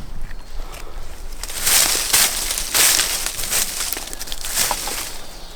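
Footsteps crunching and rustling through dry leaves and brush, in uneven bursts that are loudest in the middle.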